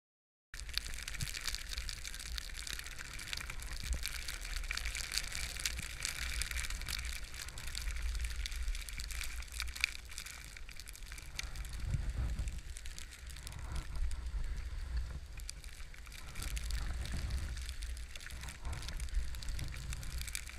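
Skis sliding and scraping over groomed snow, a steady hiss with small crunches, starting about half a second in, over a low rumble of wind on the microphone.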